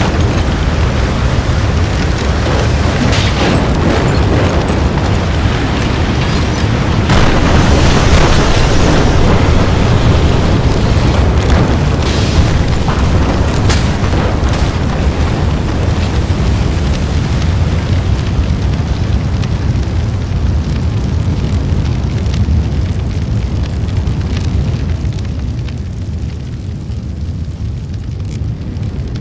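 Building fire sound effect: a dense, steady low rumble of burning with crackling and scattered sudden pops and bangs from explosions and collapsing structure. It swells about a third of the way in and eases a little near the end.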